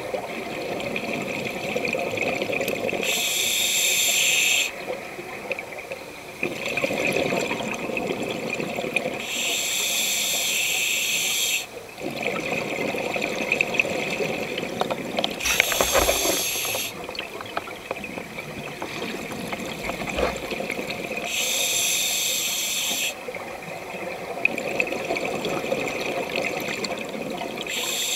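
A scuba diver breathing through a regulator underwater. A hiss on each inhale alternates with bubbling on each exhale, about one breath every six seconds.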